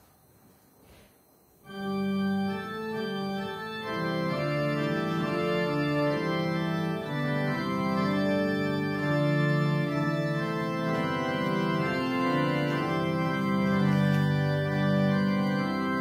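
Organ starts playing about two seconds in, sounding a hymn tune in held chords that change every second or so.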